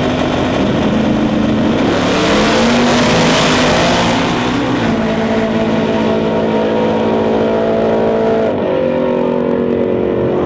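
Two Outlaw Drag Radial race cars, one a Fox-body Ford Mustang, launching off the line about two seconds in and running flat out down the drag strip. The engines are loudest just after the launch, and their pitch climbs in steps as they shift gears.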